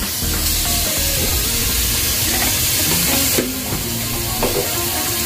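Garlic paste sizzling in hot oil in a pot just after it is dropped in. The frying hiss starts sharply and is strongest for the first few seconds.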